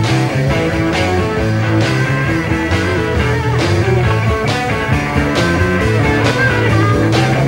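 Rock music: electric guitar chords over bass and drums, with a drum hit about once a second.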